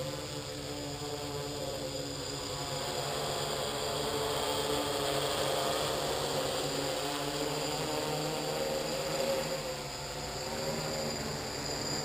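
XAircraft DIY-Hexa hexacopter's six electric motors and propellers buzzing in flight. Several pitches waver together as the throttle is adjusted. The sound grows louder through the middle as the craft passes overhead, dips a little, then rises again as it comes down low.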